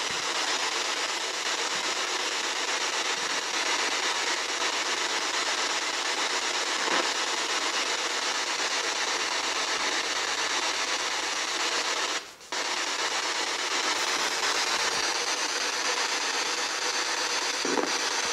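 Steady, fairly loud hiss of static that drops out briefly about twelve seconds in.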